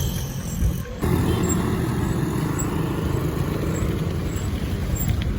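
Steady low rumble of a running motor vehicle, which comes in after an abrupt break about a second in.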